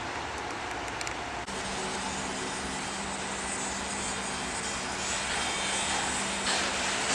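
Construction-site machinery running, a steady engine hum over a broad rush of noise; the hum sets in about a second and a half in, and the rush grows louder near the end.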